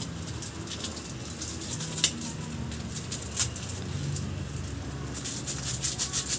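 Pork hocks boiling in a dark broth in a metal pot: irregular bubbling pops that come thicker near the end, over a low steady hum.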